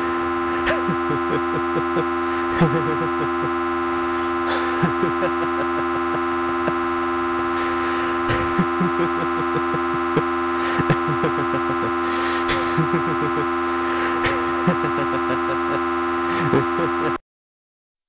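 A steady drone of several held tones, with irregular clicks and short squeaky blips over it, cutting off abruptly near the end.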